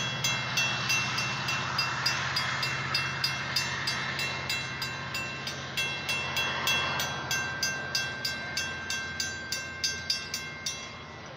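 Railroad crossing bells ringing steadily at about three strikes a second over the rushing noise of a Metra commuter train passing the crossing. The bells stop about a second before the end, once the train has cleared.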